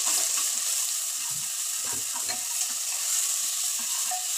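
Chopped onion, garlic and ginger sizzling in hot oil in a pressure cooker, the frying stage of a tadka, a steady hiss. A steel ladle stirs through it, making irregular scrapes and knocks against the pot.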